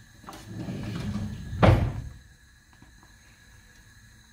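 A low scraping, sliding sound that swells over about a second, ending in one sharp knock, like a pot or utensil set down hard.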